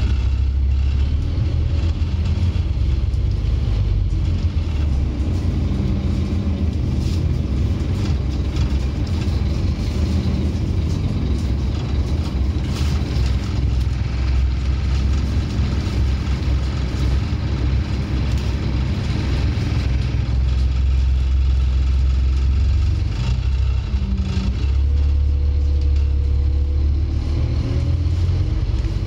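The Scania N230UD OmniCity double-decker's rear-mounted five-cylinder diesel engine, heard from inside the bus as it pulls away and drives along, with a deep low growl that rises and eases with the throttle. A higher whine rises and then holds near the end.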